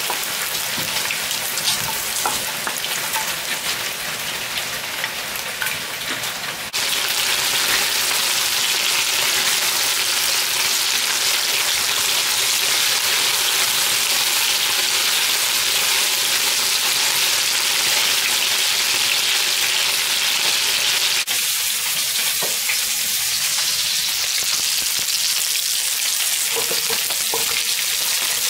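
Pork chunks frying in hot oil in a nonstick frying pan: a steady, dense sizzle. It jumps louder and brighter about 7 seconds in and drops back down about 21 seconds in.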